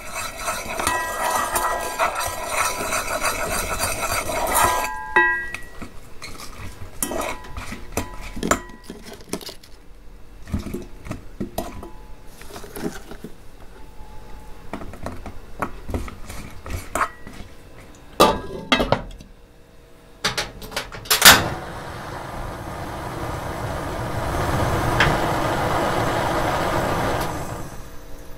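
Kitchen clatter of utensils and dishes: clinking and knocking, with a few sharp loud knocks, then a steady noise that swells and fades over several seconds near the end.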